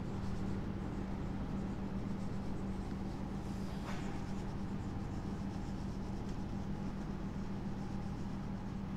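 Marker pen writing on a whiteboard, with faint scratching strokes over a steady low hum.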